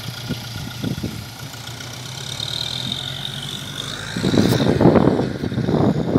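Tractor's diesel engine running steadily as it drags a sand-grooming harrow across the beach. About four seconds in, loud gusty wind noise on the microphone comes in and covers it.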